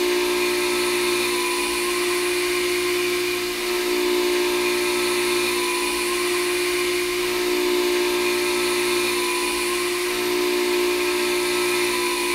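CNC milling cutter taking a heavy cut in hard metal on a machining center: a steady whine of the cutter in the cut over a hiss of spraying chips, holding even throughout.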